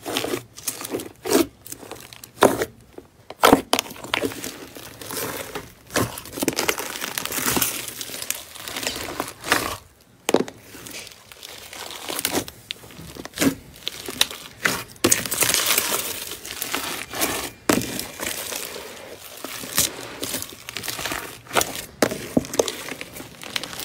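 Hands squeezing, pressing and stretching pink slime packed with white foam chunks, giving irregular crackles and pops with stretches of denser crackling.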